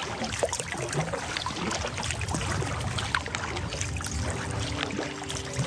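Kayak paddle strokes in calm water: light splashes and trickling drips from the paddle blades as the kayak glides along. Music fades in about four seconds in.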